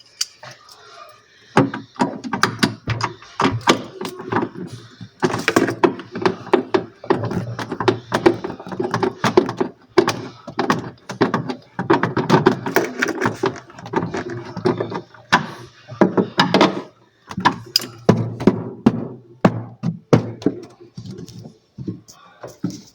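Repeated thunks, knocks and clatter of food containers and items being set onto refrigerator shelves and into the door, busiest in the first two thirds and thinning out near the end.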